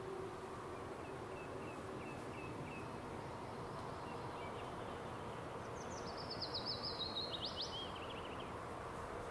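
A songbird sings one quick phrase of repeated trilled notes that steps down in pitch, about six seconds in, after a few faint high chirps earlier on. Underneath is a steady, faint background noise.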